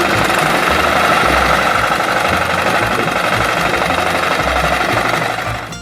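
A small motor running steadily with a dense mechanical whir, dropping away just before the end. A low rhythmic bass pulse sits underneath.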